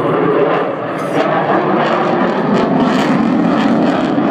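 Jet noise from an RAF Eurofighter Typhoon's twin Eurojet EJ200 turbofans as the fighter flies its display: a loud, steady rush with a crackling edge.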